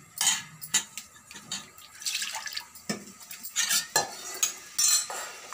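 Metal spoon and utensils clinking against a metal cooking pot: scattered sharp clinks and knocks, a few close together around the middle and near the end.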